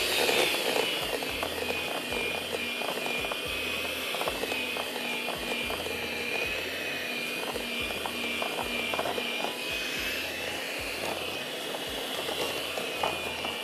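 Electric hand mixer beating frosting: a steady high motor whine that wavers slightly in pitch, with scattered light clicks.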